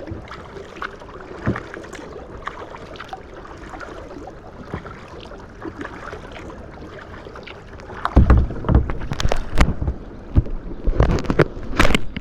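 Kayak paddling on a lake: a steady wash of water with small splashes and drips from the paddle. About eight seconds in, loud irregular rumbling knocks and cracks take over.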